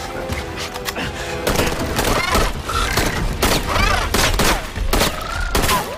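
Movie action soundtrack: rifle gunfire in rapid repeated volleys over loud music.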